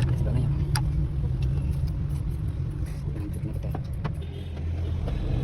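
Honda Vezel engine idling with a steady low rumble, with an occasional sharp tick.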